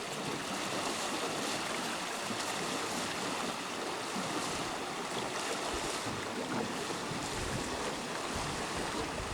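Steady rush of river water around a small unpowered boat, with wind buffeting the microphone as a low rumble in the second half.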